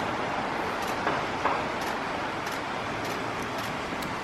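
Steady street ambience: a hum of traffic noise, with a few faint light ticks.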